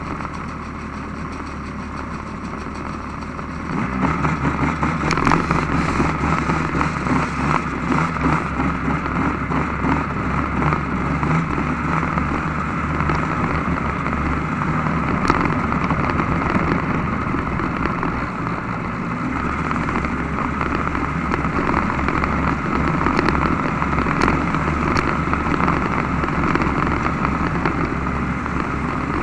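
Snowmobile engine running, idling at first, then throttled up about four seconds in as the sled moves off. It keeps running at riding speed with small changes in throttle and eases off briefly near the end of the first two-thirds. Heard from a camera mounted on the sled.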